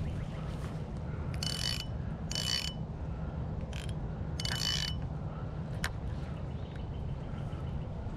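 Fishing reel being cranked in four short bursts of whirring, with pauses between, as a soft plastic worm is retrieved; a single sharp click comes near six seconds in.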